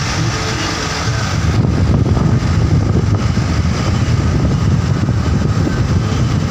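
A vehicle on the move: steady engine and road noise with wind on the microphone, growing louder about one and a half seconds in.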